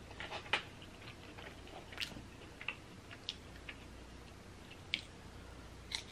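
Faint, sparse wet clicks of a fried chicken tender being coated in buffalo sauce and brought to the mouth, ending with a bite near the end.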